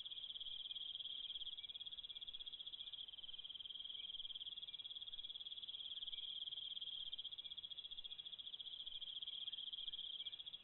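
Night insects chirring: a faint, steady, high-pitched trill of very rapid pulses.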